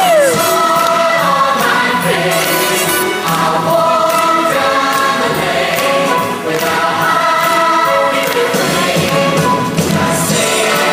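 A stage musical's chorus singing a show tune together with musical accompaniment, voices holding long notes.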